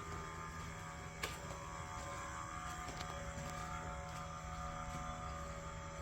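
Steady mechanical hum with several faint held tones, and one short click about a second in.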